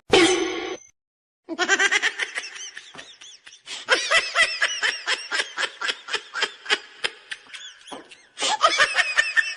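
High-pitched laughter, a long run of quick repeated laughs several a second, with a short pause near the end before it picks up again.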